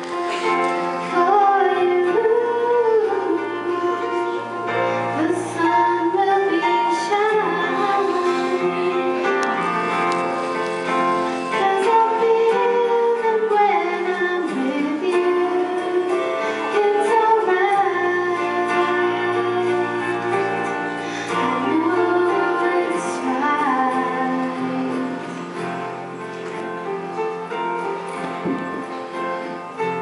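A young girl singing a slow ballad into a microphone over sustained instrumental accompaniment, heard through the hall's PA.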